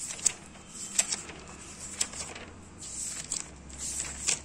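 Paper rustling as the pages of a notebook are turned and handled, with several short, sharp crackles, the sharpest about a quarter-second and one second in.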